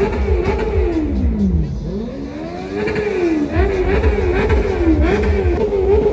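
Car engine revving through its exhaust in repeated throttle blips. The revs fall away about a second in and climb back about three seconds in, over a deep rumble.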